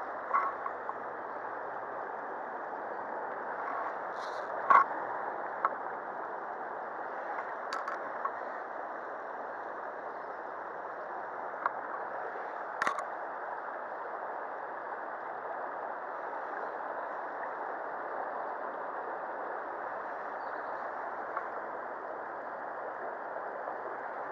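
Shallow river running steadily over a stony bed, with a few short sharp clicks, the loudest about five seconds in and again near the middle.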